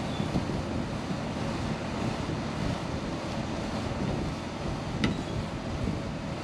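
Wind buffeting the microphone in a steady rumbling rush, with one sharp click about five seconds in.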